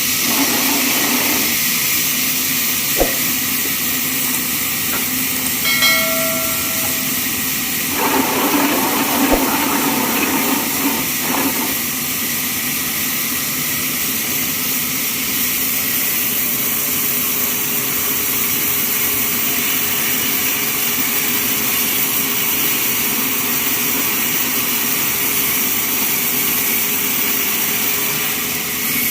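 Sawmill machinery running with a steady, loud high hiss, with a brief whistling tone about six seconds in.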